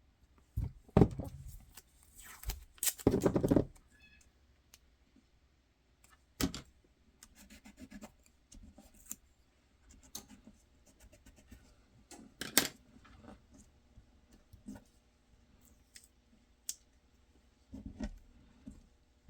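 Scattered clicks, taps and scraping of small parts being handled and set in place on a holster mold, with a longer, louder scrape about three seconds in.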